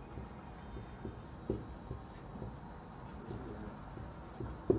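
Cricket chirping in a steady high trill, with a few faint taps and squeaks of a marker writing on a whiteboard, the sharpest near the end.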